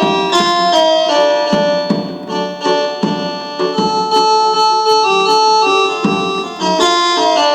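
Arabic electronic keyboard (org) playing a folk melody on a voice set to imitate the rebab or mizmar, a run of held, reedy notes over a regular beat.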